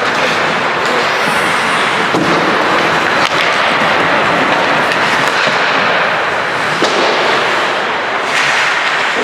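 Ice hockey play on a rink: a steady rush of skates scraping the ice, broken by about half a dozen sharp clacks of sticks and puck.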